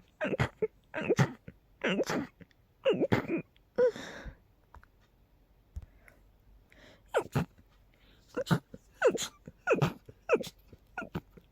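A person sneezing rapidly, a dozen or more short, sharp sneezes in two quick runs. A longer breathy sound comes about four seconds in, then a pause of a couple of seconds before the second run. The sneezer puts the fit down to a high pollen count, dust and a cold.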